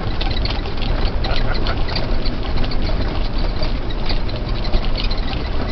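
Cabin noise of a Land Rover Defender 110 driving down a shallow riverbed: a steady low engine drone under a constant crackle of water splashing and small stones knocking against the underside.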